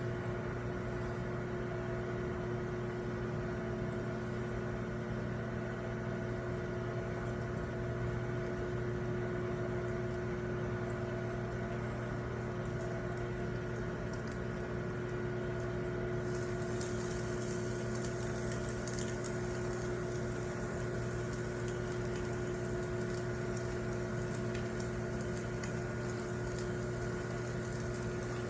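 Salmon and onions frying in oil in a pan, a crackling sizzle that grows stronger a little past halfway through, over a steady mechanical hum.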